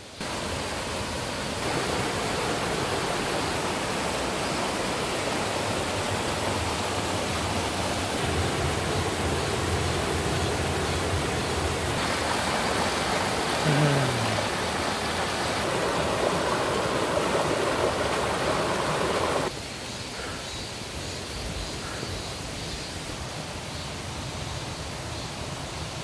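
Mountain stream rushing and splashing over boulders: a steady, even rush of water that drops to a quieter level about two-thirds of the way through.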